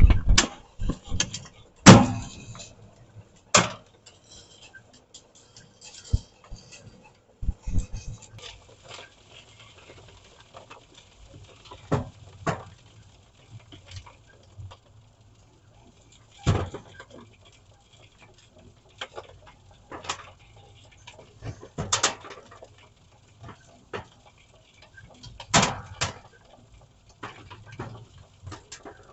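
Stones and soil rattling and knocking inside a homemade wire-mesh trommel drum built from bike-wheel rims as it turns, with irregular sharp knocks, several of them loud, over a faint low hum.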